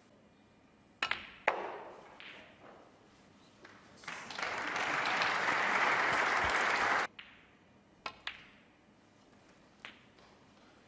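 Two sharp clacks of snooker balls being struck and colliding, then about three seconds of audience applause that cuts off abruptly. A few lighter ball clicks follow near the end.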